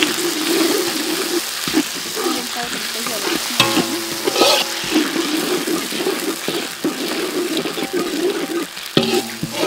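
Chili paste and garlic sizzling in oil in a steel wok while a metal ladle stirs and scrapes across the pan, with scattered clicks of metal on metal.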